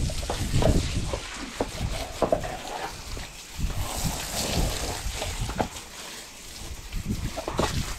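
Garden hose spray nozzle rinsing a horse's legs, water splashing onto soapy brick paving, with irregular low thumps and knocks throughout.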